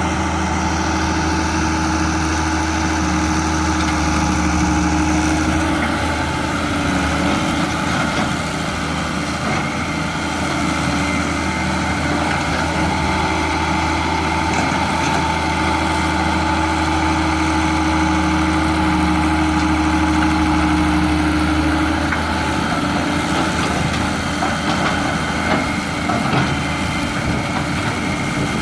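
Halla excavator's diesel engine running steadily, its note shifting briefly about six seconds in and changing again after twenty seconds.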